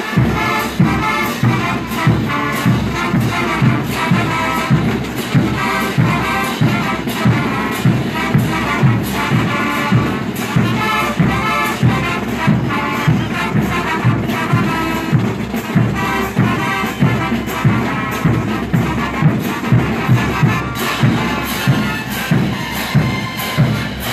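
Mexican banda brass band playing: brass instruments over a steady drum beat.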